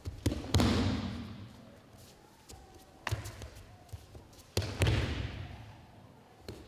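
Aikido breakfalls on tatami mats, twice: each a sharp slap and thud as the thrown partner lands, followed by about a second of fading swish as the body and hakama roll out across the mat. Smaller knocks of feet and hands on the mat come in between.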